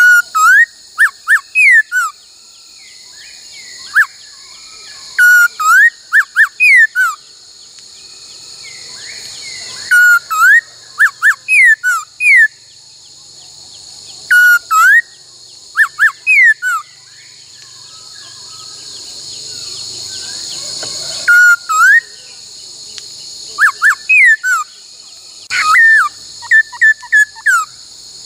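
Laughingthrush singing loud whistled phrases of quick sliding notes, in bursts every few seconds with short pauses between, over a steady high hiss.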